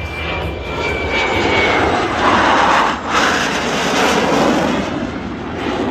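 CF-18 Hornet's twin jet engines during a demonstration pass: loud jet noise that builds and is loudest from about two to five seconds in, with a brief dip near the middle, then eases slightly. A faint high whine fades out in the first two seconds.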